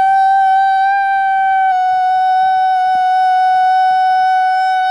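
A man's voice holding one loud, high, steady note, with a slight drop in pitch a little under two seconds in: a single sustained vocal tone.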